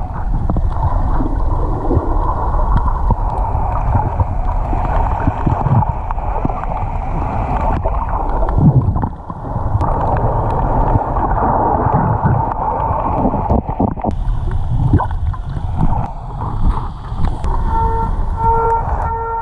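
Loud, steady churning water noise, with a brief drop about nine seconds in.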